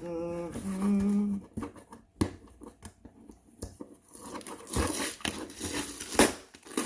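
A package being opened by hand: irregular crinkling and tearing of packaging, with a sharp rip about six seconds in. A man hums a short tune at the start.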